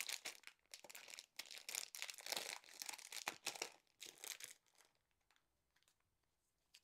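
Packaging crinkling and rustling in irregular bursts as it is handled and opened, dying away about two-thirds of the way through.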